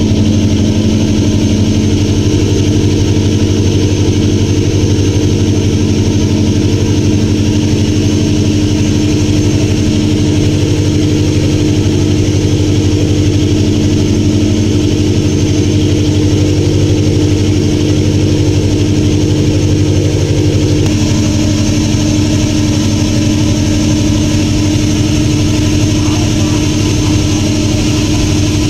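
A passenger boat's engine running steadily at cruising speed, with a hiss of water from the wake; its tone shifts slightly about 21 seconds in.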